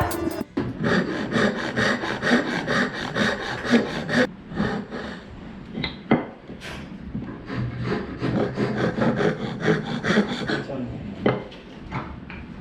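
A hand tool working wood in quick repeated strokes, about five a second for the first few seconds, then slower and more scattered.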